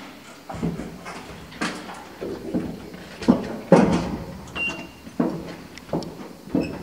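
Passenger elevator: a string of irregular clunks and knocks, roughly one or two a second, with a short high beep about four and a half seconds in.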